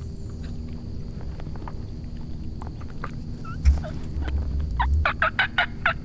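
Osceola wild turkey gobbler gobbling: a fast, rattling run of notes starting near the end. A single low thump comes shortly before it.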